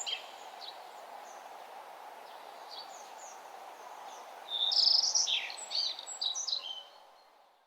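Songbirds chirping in short, high phrases, busiest about halfway through, over a steady background hum; the sound fades out near the end.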